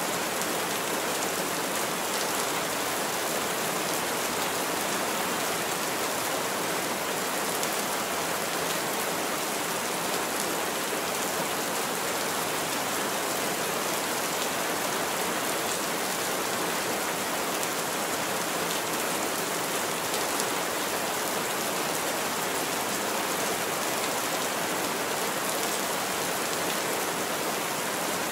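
Heavy rain falling steadily on a roof, an even, dense hiss.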